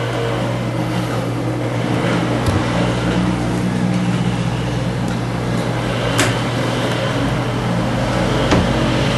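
Steady machine hum with a continuous whir, broken by a few brief clicks.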